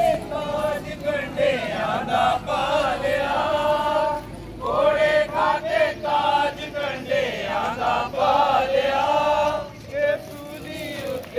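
A group of voices singing a hymn together in unison, in phrases of long held notes with short breaks between them.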